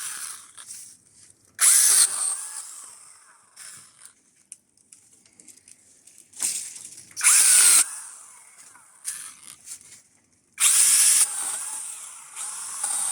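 Small battery chainsaw cutting a tree into short pieces in three bursts of a second or two each, with quiet pauses between cuts.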